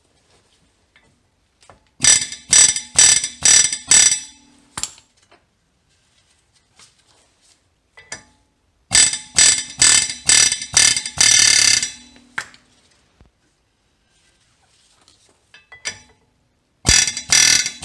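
Pneumatic air hammer with a hammer head rattling against a brake rotor that is rusted onto the hub. It goes in three bursts of a couple of seconds each, the trigger worked in short stabs, with quiet between the bursts.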